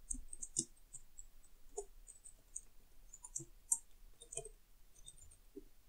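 Faint, irregular keystrokes on a computer keyboard, as code is typed.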